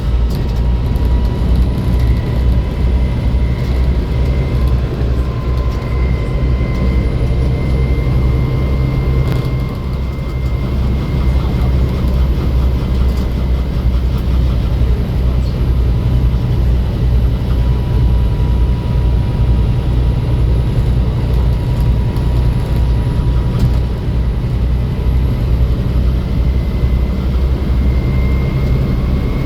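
Volvo B7 bus running: a loud, steady low drone with a thin, steady whine above it, easing off briefly twice.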